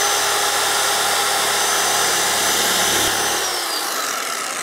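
Machine polisher running with a one-step microfiber pad on the bumper's paint, cutting out holograms. About three and a half seconds in it is switched off, and its whine falls as it spins down.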